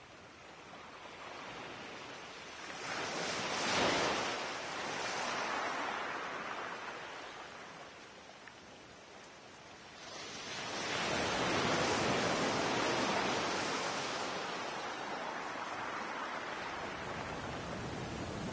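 Sea waves breaking on a beach: two swells of surf build and fade, about four seconds in and again from about ten seconds, with a steady wash in between.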